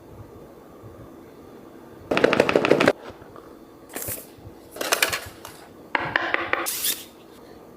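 Packaging being handled and opened: four short bursts of rapid crackling and clicking, the loudest about two seconds in and the longest near the end.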